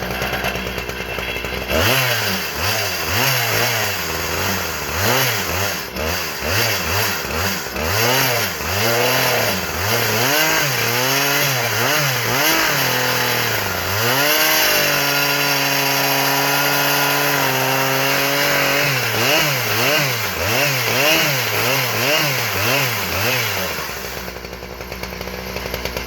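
Husqvarna 3120 two-stroke chainsaw idling, then revved up and down over and over, about once a second. About halfway through it is held at high speed for about four seconds, then it is revved again and drops back to idle near the end.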